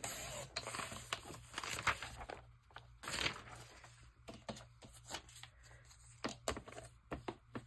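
Sliding-blade paper trimmer cutting through a glossy magazine page, a scraping cut lasting about two seconds. It is followed by a shorter rustle of paper and then a series of light clicks and taps as the cut strip is picked up and handled.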